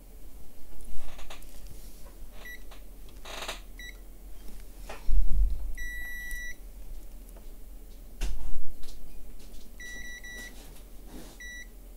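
Digital multimeter in continuity mode giving short, high beeps as its probes touch test points on an iPhone logic board, with one longer beep about halfway through and several quick ones near the end. Several knocks from the probes and board being handled sound between the beeps.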